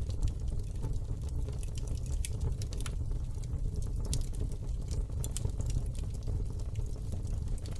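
Fire crackling in a fireplace: a steady low rumble with many small, irregular pops and snaps.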